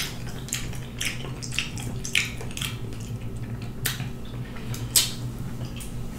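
A person eating rotisserie chicken by hand, with wet chewing and lip smacks that come as short, irregular clicks, a louder one about five seconds in. A low steady hum runs underneath.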